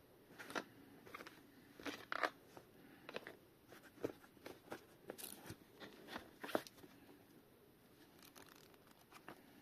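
Irregular handling noises: short clicks, light knocks and crinkles, spaced unevenly, as a revolver and the contents of its packaging are handled.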